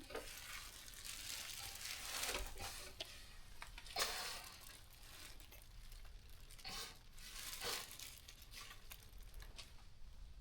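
Irregular rustling and shuffling from hands working at a ewe as her lamb is pulled during an assisted birth, with the sharpest rustle about four seconds in.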